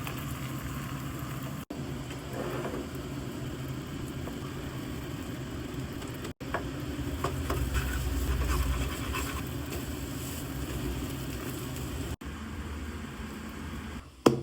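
Egg-coated bread frying in a pan: a steady sizzle with light crackles over a low steady hum, broken off abruptly three times.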